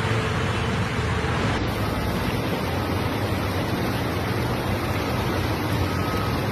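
Steady rushing noise of rain and floodwater, with no single sound standing out; the hiss turns duller about a second and a half in.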